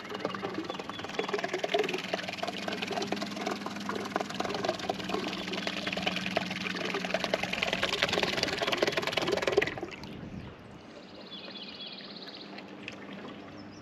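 A boat's motor humming steadily as the hull moves through shallow water, with water churning and splashing underneath. It cuts off suddenly about ten seconds in, leaving faint bird chirps.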